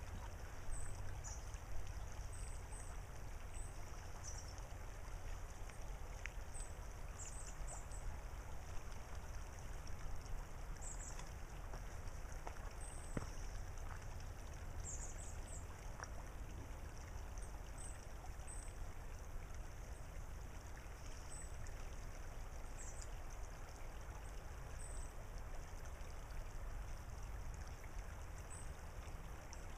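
Steady gentle water noise of a shallow creek running over pebbles, under a low steady rumble, with scattered short, thin, high-pitched bird chirps throughout.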